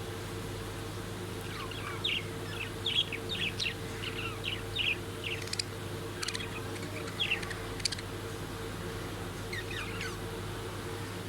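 Parrots chirping in a quick run of short, sharp calls for several seconds, then a few more near the end, over a steady low hum.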